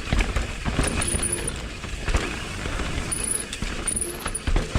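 Mountain bike rattling down a dirt trail: tyres rolling on dirt, with frame and drivetrain clatter and sharp knocks over bumps. Three short high squeals come about 1, 3 and 4 seconds in, typical of the Hope V4 disc brakes on Galfer Shark rotors squeaking when applied; the rider says the squeak stays through changes of pads and rotors.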